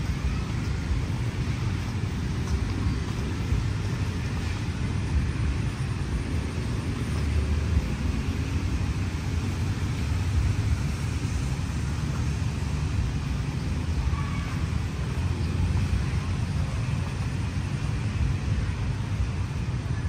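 Steady hum of city traffic: an even low rumble with no single vehicle standing out.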